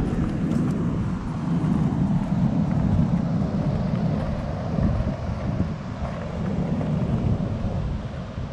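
Wind buffeting an action camera's microphone: a steady, gusting rumble, with the wash of ocean surf beneath it.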